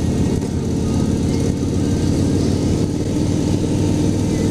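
Harley-Davidson Softail Slim's V-twin engine running steadily at low speed, held in second gear on a rough, loose road surface.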